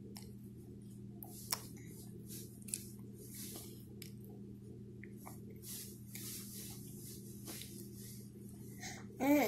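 Faint smacks and chewing of a toddler eating soft pieces of steamed cabbage by hand, over a steady low hum, with one sharp click about a second and a half in.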